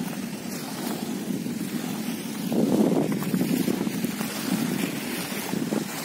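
Wind rushing over the microphone, with small waves washing onto a shell-and-shingle beach. The rush swells for about a second midway.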